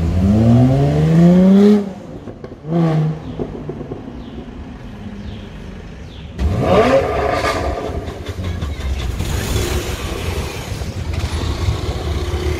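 A Jaguar F-Type's engine accelerating hard, its pitch climbing for about two seconds before it cuts off suddenly, followed by a short rev. About halfway through, another sports car's engine revs up sharply with a rising pitch, then settles into a steady engine rumble.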